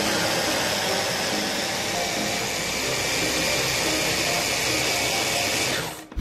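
Electric mini chopper's motor running steadily at full speed, blending coriander and liquid into a smooth green purée. The motor stops near the end.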